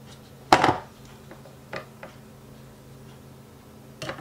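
A frying pan heating on the hob with a little clarified butter: a few scattered clicks and ticks over a faint steady hum, the loudest click about half a second in.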